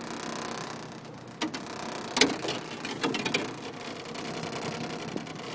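Spinning fishing reel whirring as it is cranked, with a few sharp knocks of handling near the middle.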